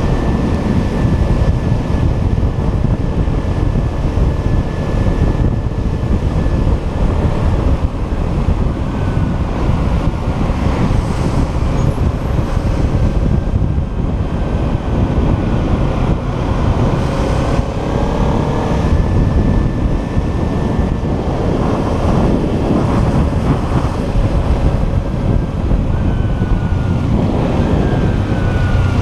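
Kawasaki Ninja 300's parallel-twin engine running under way, largely buried in steady wind and road noise. The engine pitch shifts a few times in the second half as the bike changes speed.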